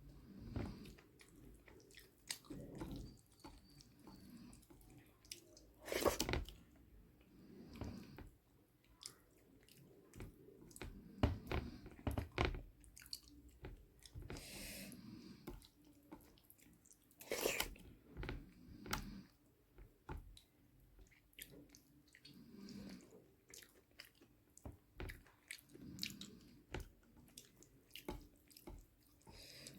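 A person chewing and eating rice with dal and mashed vegetables, with irregular wet mouth smacks and small clicks, two of them louder.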